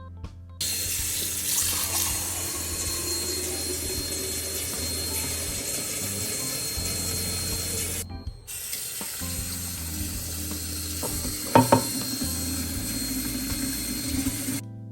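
Water running from a tap into a sink, starting about half a second in, stopping briefly around eight seconds, then running again until near the end. Two sharp knocks come about two-thirds of the way through, with soft background music underneath.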